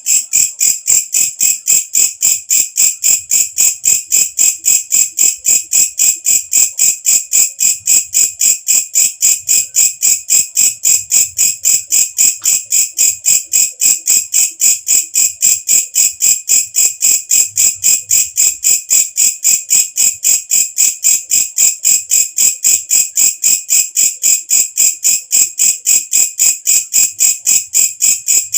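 Walang kecek katydid (belalang kecek) calling: a loud, shrill, unbroken train of rapid chirps, about five a second, perfectly even in rhythm.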